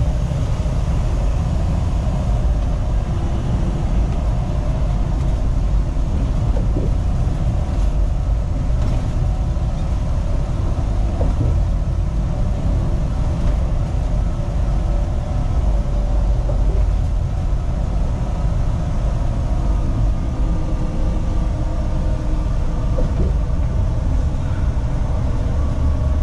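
Semi-truck cruising at highway speed, heard from inside the cab: a steady low drone of diesel engine and tyre noise, with a faint engine hum above it.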